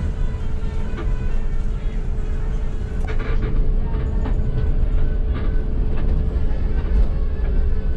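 Bus on the move: a steady low rumble of engine and road noise with a constant hum, and a few short knocks or rattles.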